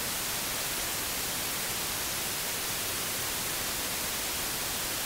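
Steady hiss of recording noise from the microphone, with no other sound above it.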